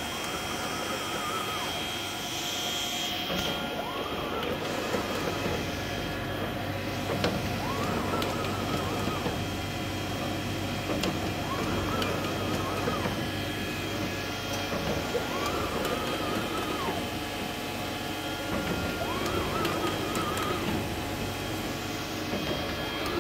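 Horizon BQ-440 four-clamp perfect binder running through its binding cycle: a steady machine hum, with a whine that rises, holds for about a second and falls again about every four seconds, six times over.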